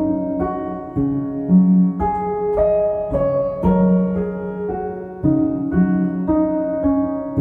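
Slow instrumental background music on piano: held notes and chords ringing on, with a new note struck about once a second.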